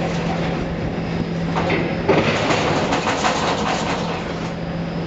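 Container crane machinery running over a ship's hold: a steady electric hum, then from about two seconds in a stretch of metallic rattling and clanking lasting about two seconds.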